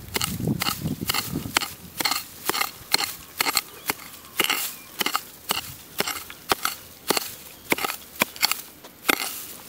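Dry grass crunching and rustling in a quick, even rhythm, about three crunches a second, as it is swept and trampled through.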